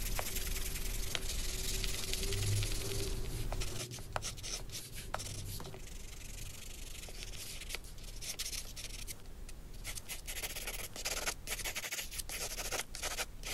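Pencil scratching on sketchbook paper while drawing and hatching. The scratching is dense and steady for the first few seconds, then breaks into quicker, separate short strokes.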